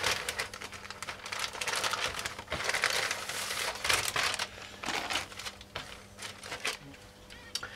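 Clear polythene kit bag crinkling and rustling as a stack of plastic model-kit sprues is slid out of it, in irregular bouts that die down near the end.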